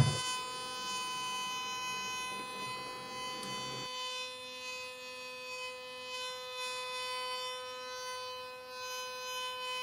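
Table-mounted router spinning a large 1-inch profile bit, a steady high whine, during a finishing pass along the edge of a round tabletop. The lower rushing noise under the whine drops away about four seconds in.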